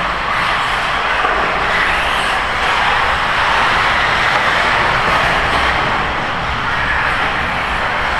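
1/8-scale radio-controlled buggies racing on an indoor dirt track: a steady loud din of motors and tyres that swells and eases every second or two.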